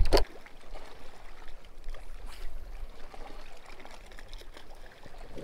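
Faint water lapping and trickling against a boat hull, steady and soft, after a brief louder sound right at the start.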